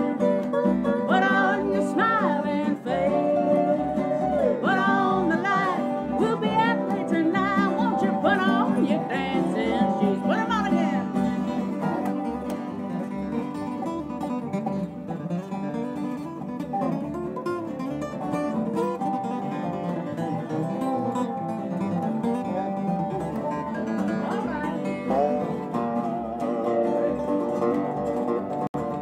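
An acoustic country band playing: resonator guitar and acoustic guitars over a plucked upright double bass keeping a steady beat. Gliding lead notes stand out in the first ten seconds or so.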